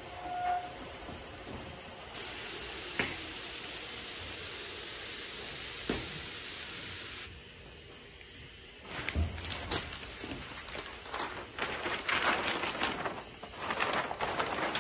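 Hot melt glue handgun spraying a swirl pattern: a steady hiss of air and glue begins about two seconds in and cuts off sharply about five seconds later. Then a large sheet of kraft paper crinkles and rustles as it is lifted.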